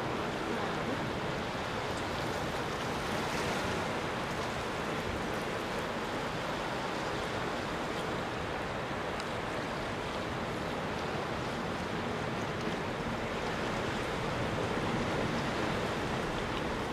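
Sea waves washing steadily over a rocky shoreline, a continuous even noise without breaks.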